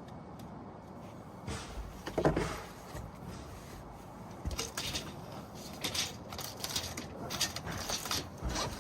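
Irregular knocks and clicks from handling timber on a wooden roof deck, more frequent in the second half, with a brief pitched sliding sound about two seconds in.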